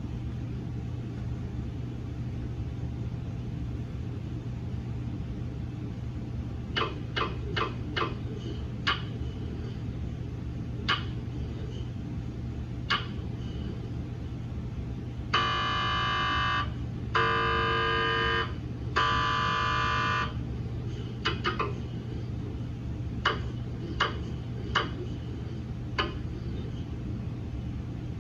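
GE MRI scanner during daily QA prep: scattered sharp knocks, then three loud buzzing tones about a second and a half each in a row midway, over a steady low hum.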